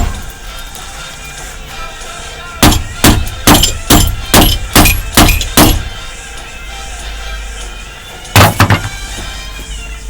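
Hammer blows on a Master padlock: a run of about eight sharp metal strikes in quick, even succession, then a single heavier blow a few seconds later, over background music.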